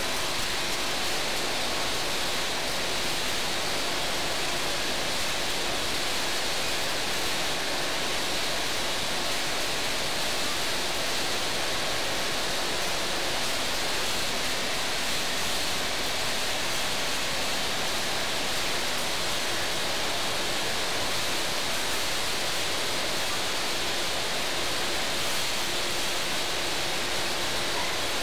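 Steady, even hiss with no knocks or rhythm. A faint machine hum shows under it near the end.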